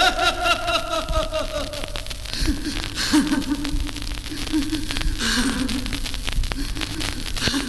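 A worn 45 rpm vinyl single of Turkish music playing an instrumental passage: a sliding, wavering melody line, higher at first and lower after about two seconds, under heavy surface crackle and clicks.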